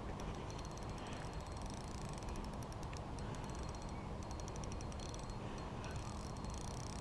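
Fishing reel clicking in short runs of rapid ticks, several times over, as a hooked hybrid striped bass is played and reeled in, over a steady low rumble.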